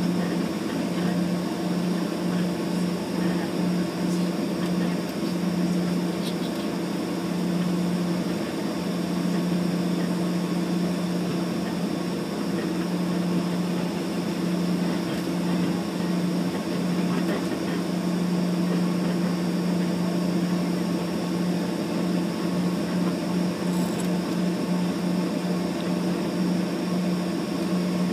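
Small airliner's engines running at taxi power, heard inside the passenger cabin as a steady drone with a low hum and a fainter higher hiss that do not change.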